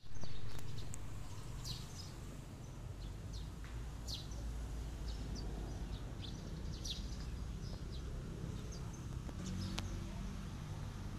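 Outdoor ambience: scattered short, high bird chirps over a steady low rumble, with a low bump right at the start.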